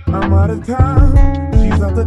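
Background music: a sung song over guitar with a strong, pulsing bass beat.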